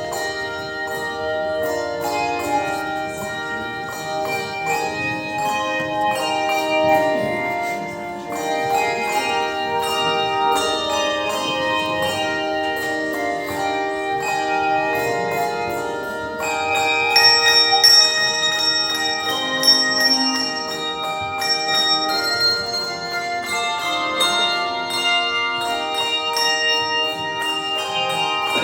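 A bell ensemble playing music: many struck bells ringing in quick succession, their tones overlapping and sustaining. Higher-pitched bells come to the fore a little past the middle.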